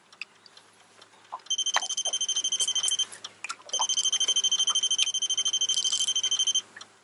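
Electronic buzzer beeping in rapid pulses, in two runs: a short one about a second and a half in, and a longer one of about three seconds starting near the middle, with a few light clicks between.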